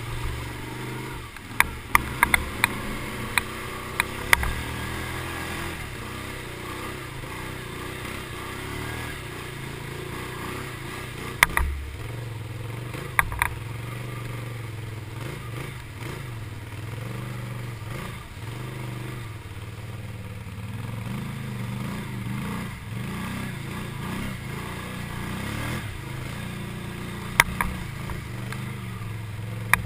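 ATV engine running steadily as the quad wades through deep water, with sharp knocks and clatter from the machine in the first few seconds, twice around the middle and once near the end.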